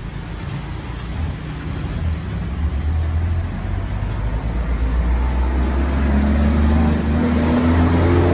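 A motor vehicle's engine running with a steady low rumble, its pitch rising over the last two seconds as it speeds up.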